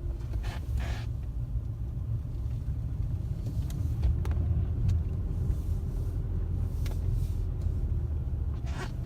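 A car driving: a steady low rumble of engine and road, with a few faint ticks.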